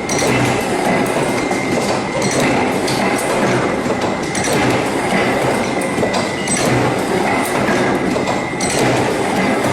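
Machinery running with a steady, loud mechanical noise, a faint high whine and occasional clacks.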